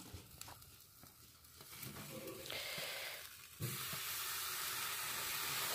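Beef tri-tip sizzling on a hot grill grate. The sizzle is faint at first, then from about three and a half seconds in it becomes a steady, louder hiss as the meat is turned over with a grill fork.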